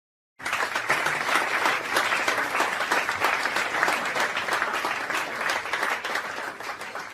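Applause from a group of people, many hands clapping at once, starting abruptly about half a second in and dying away near the end.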